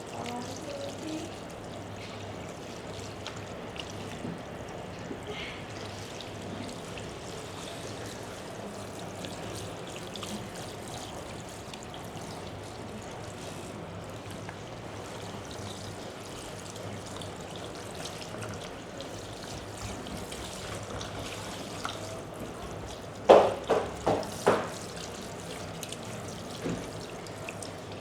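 Water running and pouring over hair during a hair wash, with a cluster of four or five quick, sharp taps about three-quarters of the way through.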